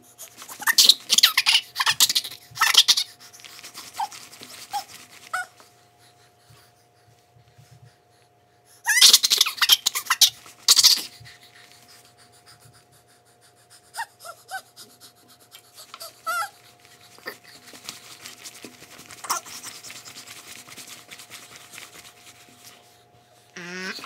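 A baby's excited noises: two bursts of rapid, huffing, gasping breaths, the first about a second in and the second about nine seconds in, with a few short high squeaks between them.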